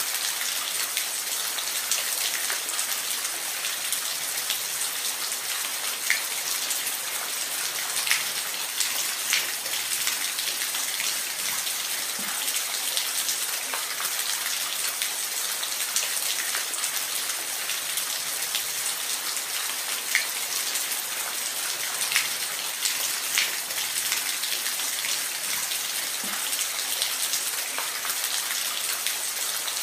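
Steady rain falling in a forest: a dense, even hiss with sharper single drops striking at irregular moments every second or few.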